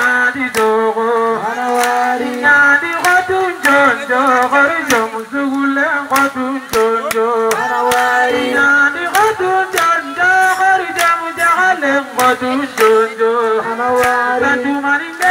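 A man singing a chant-like song into a microphone, holding long notes that bend and slide in pitch, over sharp beats that come about every half second.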